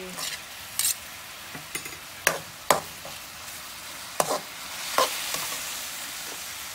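Meat sizzling in a steel wok while a metal ladle stirs it, the ladle knocking and scraping against the pan about five times.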